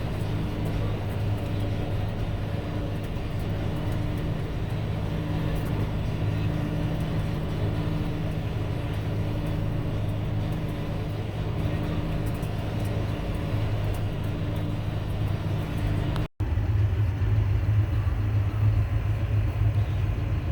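Farm tractor engine running steadily with a low, even hum. It breaks off for an instant near the end and comes back slightly louder.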